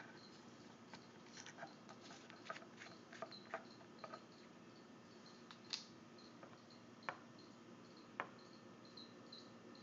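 Faint clicks and taps from a hand handling a hot sauce bottle and its cap over a shot glass on a tiled counter, several close together in the first few seconds and then single ones, over a faint high chirp that repeats about three times a second.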